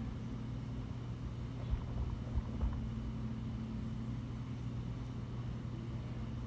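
Steady low hum with a constant pitch, with a few soft low thumps about two seconds in.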